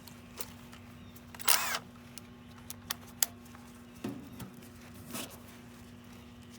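Handling noises on an outdoor AC unit's casing: a few sharp clicks and a short scraping squeal about one and a half seconds in, over a steady hum.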